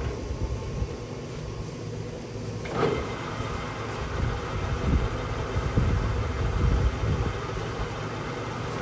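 Harrison M350 engine lathe running with a steady mechanical hum and an uneven low rumble, and one brief clunk about three seconds in.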